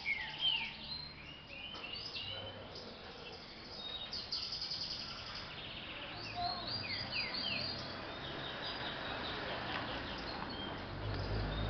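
Caged green-winged saltators (trinca-ferro) singing the 'boiadeiro' song type in short phrases of whistled notes, falling sweeps and quick trills. The birds are just out of moult and warming back into song.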